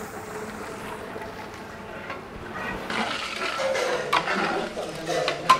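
Raw chicken pieces tipped from a large metal pan into a pot of masala: a wet sliding, sloshing noise that grows louder about three seconds in, with a few metal clanks.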